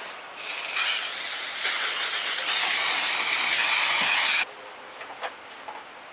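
An aerosol can spraying in one continuous hiss for about four seconds, starting about half a second in and cutting off suddenly; afterwards only a few faint ticks are heard.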